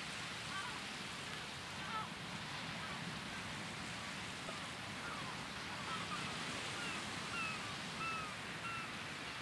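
Sea ambience: a steady wash of surf with many short chirping bird calls over it, the calls coming more often in the second half.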